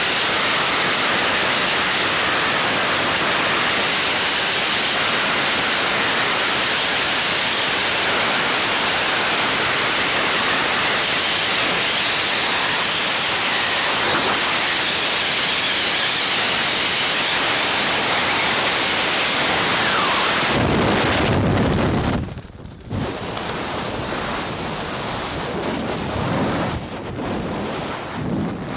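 Freefall wind rush on a skydiver's helmet camera: a loud, steady roar of air. About 21 seconds in it gives way to lower, gusty wind buffeting the microphone under the opened parachute.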